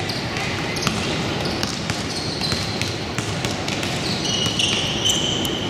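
Basketball game play in a gym: a ball bouncing on the court and short high squeaks of sneakers, the squeaks mostly from about four seconds in, over a steady murmur of the crowd.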